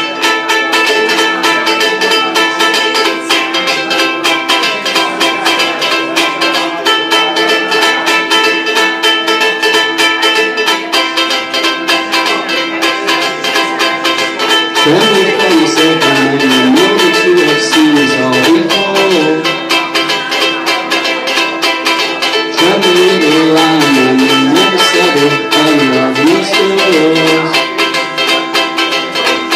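Ukulele strummed fast in a steady driving rhythm. From about halfway a man's voice sings over the strumming.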